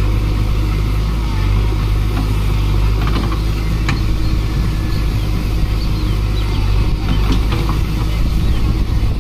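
JCB 3DX backhoe loader's diesel engine running steadily with a deep hum as the backhoe arm works through roadside brush, with a few short snaps about three to four seconds in and again around seven seconds.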